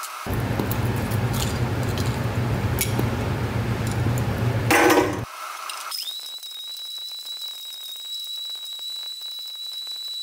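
Tabletop blender grinding broken-up laptop circuit boards into powder: a loud, low grinding noise for about five seconds, then after a brief drop a steady high motor whine that rises in about six seconds in and falls away at the end as the motor spins down.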